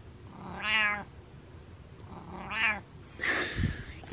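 Domestic cat meowing twice, two short calls about two seconds apart, followed near the end by a brief rustling noise with a low thump.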